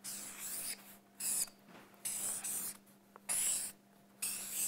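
Felt-tip marker drawn across flip-chart paper in five strokes, each under a second long, with short gaps between.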